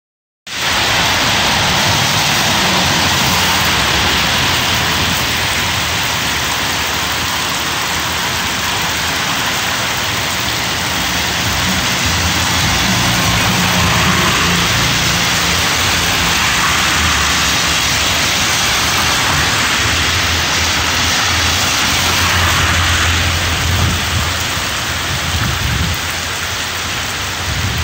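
Heavy rain pouring down on a street and pavement, a steady loud hiss. Underneath it runs a low rumble of cars driving through on the wet road, strongest around the middle.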